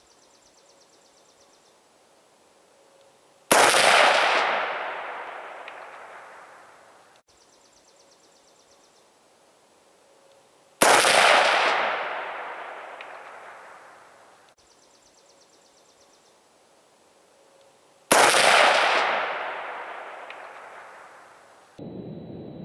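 Three gunshots about seven seconds apart, each a sharp crack that rolls away in a long echo dying over about three seconds.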